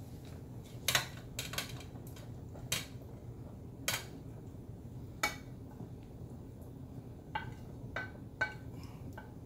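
Wooden spoon knocking and scraping against a ceramic plate as shredded chicken is pushed off it into a pot of soup. About ten light, irregular clicks and taps, a few with a short ring, over a low steady hum.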